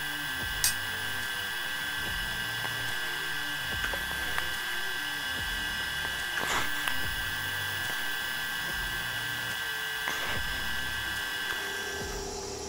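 TIG welding arc burning steadily on a cast steel seam: a steady high whine over a hiss, with a couple of brief sharp ticks. It cuts off near the end as the arc is stopped.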